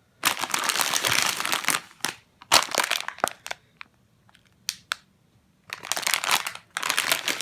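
Crinkly packaging being handled, crackling in three bursts of about a second or more, with scattered small clicks between them.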